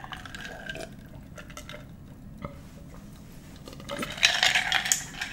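A person drinking soda from a glass jar: quiet swallowing and liquid sounds, then a louder noisy stretch about four seconds in as the drink goes on.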